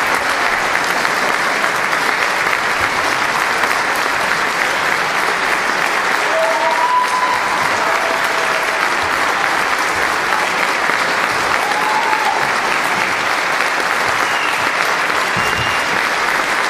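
Concert hall audience applauding steadily after a performance, with no music playing.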